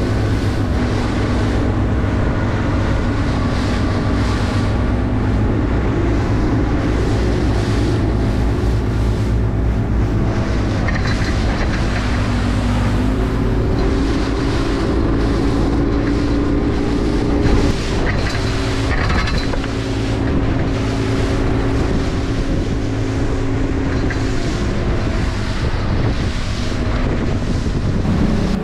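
Outboard engine of a small center-console bay boat running under way, its pitch stepping up about halfway through and easing back near the end. Wind buffets the microphone over the rush of the hull through the water.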